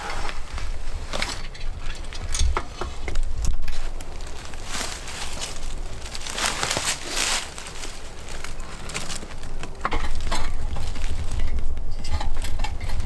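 Irregular crunching and crackling, over a low rumble of wind on the microphone.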